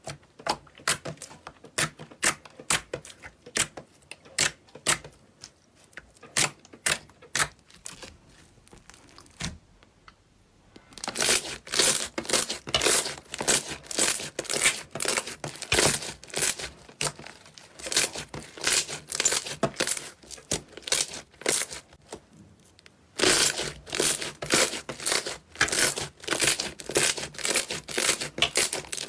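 Slime being squeezed and kneaded by hand, making a fast, irregular run of sharp clicks and pops from air pockets. The clicks are sparser in the first third, stop briefly, then come denser and louder.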